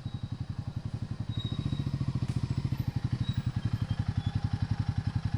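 Motorcycle engine running at low revs with an even, rapid chugging pulse of about a dozen beats a second, growing slightly louder about a second and a half in.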